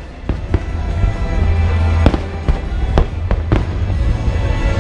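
Aerial fireworks shells bursting in a string of sharp, irregularly spaced bangs over a constant deep rumble, with music playing in the background.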